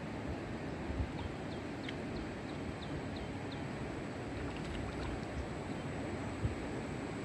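Steady rush of a fast-flowing rocky river, with a quick run of about eight short, high, falling chirps a second or so in.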